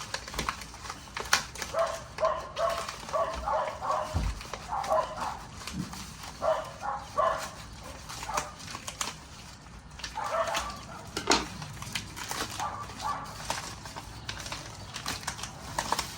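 A dog barking repeatedly in short runs, with sharp clicks and rustles of small pieces and packaging being handled.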